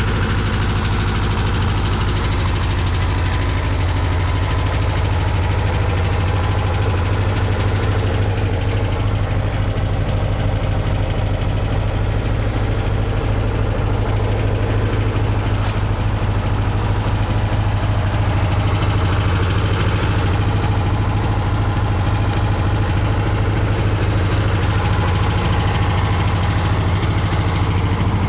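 1969 Porsche 912's air-cooled flat-four engine idling steadily.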